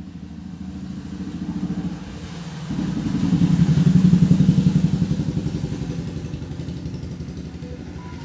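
A motor vehicle engine going by, its rapid firing pulses growing louder to a peak about halfway and then fading away.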